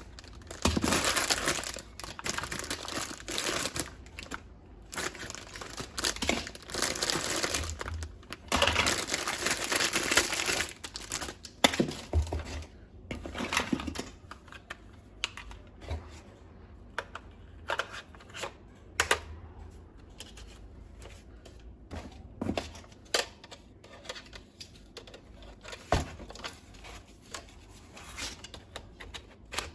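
Packaging crinkling and rustling as it is opened, in long stretches through the first half, then many scattered sharp clicks and taps for the rest.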